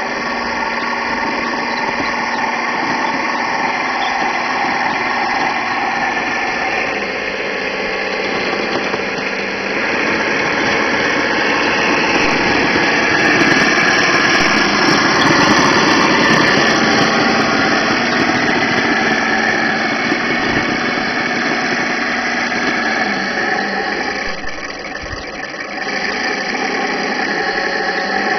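A 1/6-scale radio-controlled M4 Sherman tank running: a steady, engine-like drone. It grows louder for a few seconds midway and dips briefly near the end.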